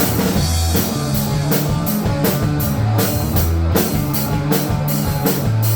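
Live rock band playing an instrumental passage with no vocals: a drum kit keeps a steady beat of cymbal and snare hits, about two and a half a second, over sustained low bass notes and guitar.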